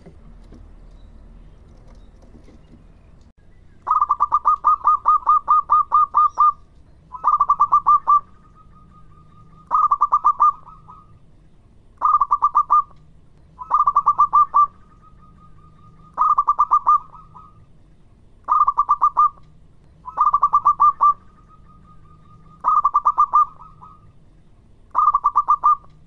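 Zebra dove (perkutut) cooing: about ten quick runs of staccato coos, one every two seconds or so, starting about four seconds in. Several runs trail off into a drawn-out note, and the first run is the longest.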